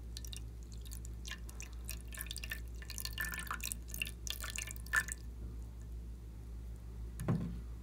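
Clear liquid poured in a thin stream from a small plastic dish into a tray of thick, glossy slime mixture, splashing and dripping for about five seconds; a single dull knock near the end.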